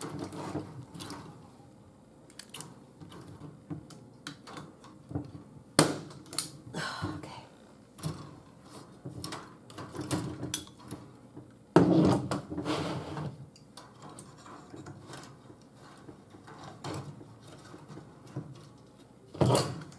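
Manual staple gun driving staples through chicken wire into a wooden shelf frame: three sharp snaps, about six, twelve and nineteen seconds in, with softer clicks and the rattle of the wire being handled between them.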